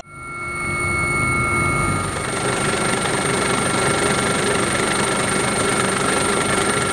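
Police helicopter's turbine engine and rotors running, heard from inside the cabin with the side door open: a steady rush with a constant high whine on top. It fades in over the first second.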